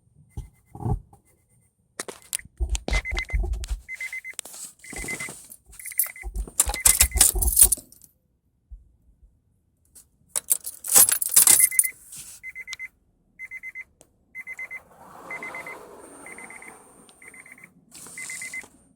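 Subwoofer crackling and popping in bursts, twice with deep bass thumps underneath, the loudest stretches early and around the middle: the fault the owner calls crackling. A short high beep repeats a little faster than once a second through most of it.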